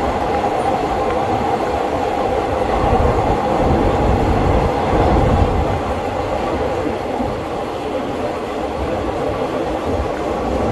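Passenger train carriage running on the elevated track, heard from its open doorway: a loud, steady rumble of wheels on the rails.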